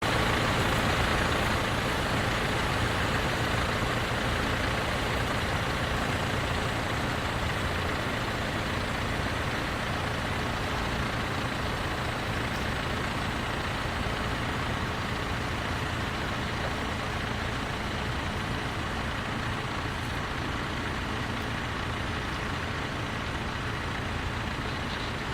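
Tractor engine running steadily, slowly growing a little fainter.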